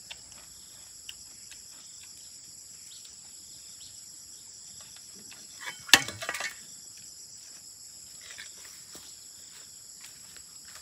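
Steady high-pitched insect chirring, with a single sharp bang about six seconds in followed by a brief clatter.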